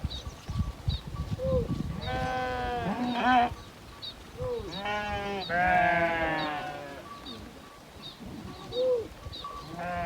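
Sheep bleating: two long, wavering bleats, about two seconds and five seconds in, and a short one at the end. A faint, high call repeats about every half second throughout.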